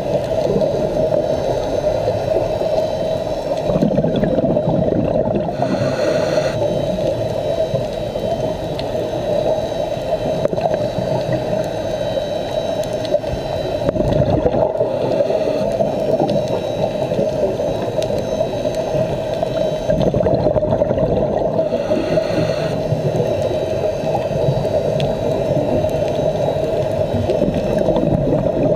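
Muffled underwater noise picked up through a camera housing on a scuba dive: a steady gurgle of diver's bubbles, with a brighter hiss coming back about every seven to eight seconds, like the cycle of a diver breathing on a regulator.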